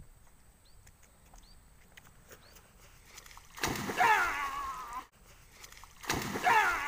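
A person belly-flopping into shallow river water: a loud splash with a voice crying out, heard twice, the second an almost identical repeat about two and a half seconds after the first. Faint short bird chirps come before it.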